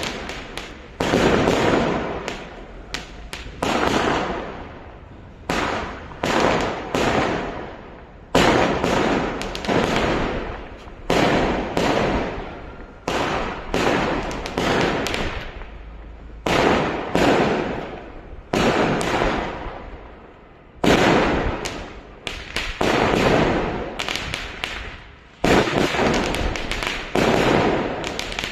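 Fireworks going off in quick succession, about one sharp bang a second, each trailing off over a second or so before the next.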